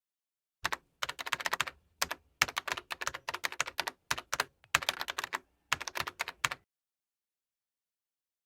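Rapid keyboard typing: quick runs of sharp key clicks in several bursts with short gaps, stopping about six and a half seconds in.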